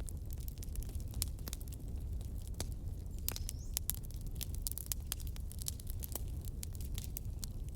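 Bonfire burning: a steady low rumble of flame with many sharp, irregular crackles and pops.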